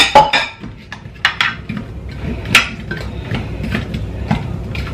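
A metal spoon clinking and scraping against a white ceramic baking dish while tossing chunks of oiled potato, carrot and pepper. Sharp clinks come irregularly, the loudest right at the start and about two and a half seconds in.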